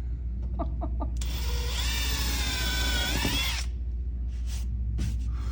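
Power drill boring into a wall, running for about two and a half seconds with a whine that dips in pitch under load and rises again before it stops. The bit's behaviour leaves it unclear whether it went into a stud or an empty cavity.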